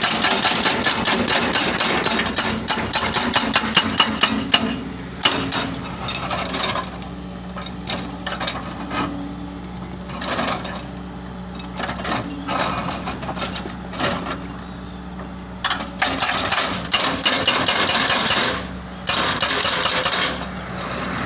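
Excavator-mounted SAT800 hydraulic rock breaker hammering its chisel into rock: a fast, even run of blows for the first four or five seconds, then shorter stop-start bursts with pauses, picking up again near the end. The excavator's diesel engine runs steadily underneath.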